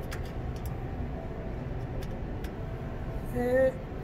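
Steady low background hum with a few faint ticks of a screwdriver working the screws on a checkout conveyor's side cover. Near the end a short vocal sound, louder than the rest.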